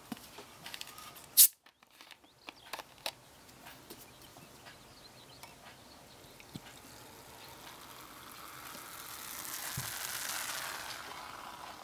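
Cola poured from a plastic bottle into a glass, the carbonation fizzing in the glass as a hiss that builds, peaks and then fades near the end. A sharp click about a second and a half in, with a few small clicks after it.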